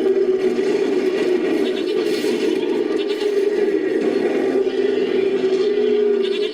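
Designed monster-creature sound effect mixed from goat and sheep cries and big-animal and monster vocalizations: one long, rough, drawn-out call held at a steady, slightly wavering pitch.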